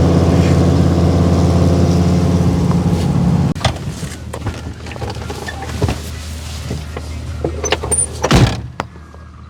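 A vehicle engine running steadily at raised revs, cutting out suddenly about three and a half seconds in. Scattered clunks and knocks follow, with one loud thunk near the end.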